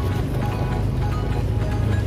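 Music with short melodic notes over a steady low hum.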